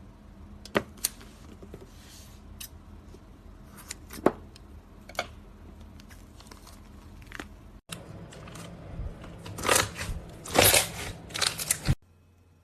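Slime being pressed and squished by hand, with scattered sharp clicks and crackles. The crackling gets denser and louder over the last few seconds.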